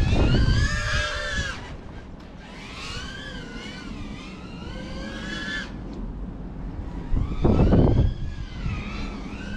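An FPV quadcopter's motors and propellers whining, the pitch rising and falling as the throttle changes. The whine fades out a little past the middle and comes back near the end. Low rumbling bursts come at the start and again about seven and a half seconds in.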